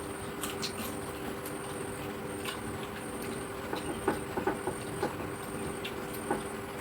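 Small clicks and knocks of someone eating, scattered and bunched together about four to five seconds in, over a steady electrical hum.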